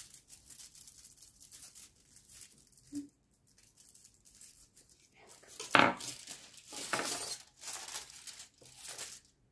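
A thin spatula scraping quietly under a decoupage ornament on a foil sheet, then the foil sheet crinkling in several louder rustles as it is lifted and handled during the second half.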